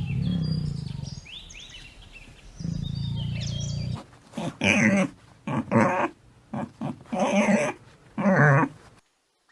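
An animal calling: two low rumbling growls of about a second each, with faint high chirps above them, then a run of five loud, higher-pitched calls.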